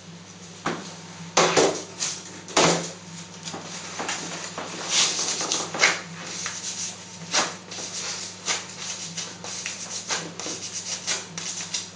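A hand rubbing briskly over the skin of a leg during a waxing treatment: a quick, irregular series of short brushing strokes, with a couple of louder knocks in the first few seconds. A steady low hum runs underneath.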